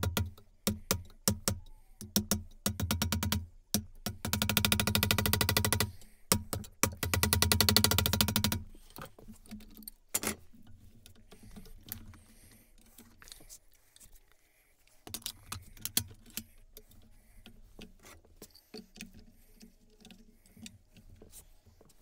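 Electronic background music with a beat of sharp clicks and two loud, dense passages in the first half. It then falls to a quieter, sparse stretch of scattered clicks.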